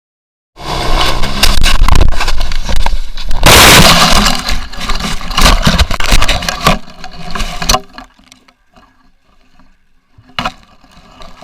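Motorcycle crash: a loud, distorted run of impacts and scraping noise, loudest about three and a half seconds in, that dies away near eight seconds to faint sounds and a single knock.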